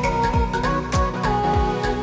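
Background music with a steady beat: a kick drum about twice a second under a held lead melody that slides between notes.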